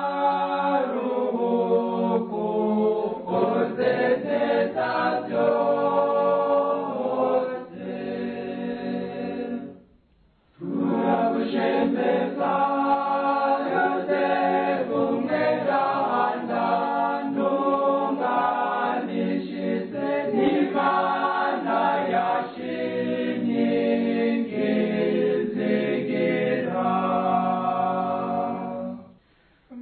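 Choir singing a Catholic hymn to Saint Joseph in Kirundi, several voices in harmony. The singing breaks off briefly about ten seconds in and again near the end, then goes on.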